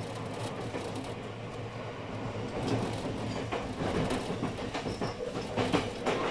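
JR West 223 series 2500 subseries electric train running on the rails, with a steady low running hum and a few sharp clicks of the wheels over rail joints in the second half.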